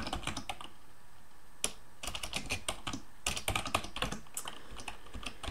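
Typing on a computer keyboard: quick runs of key clicks, with a pause of about a second shortly after the start before the keystrokes resume.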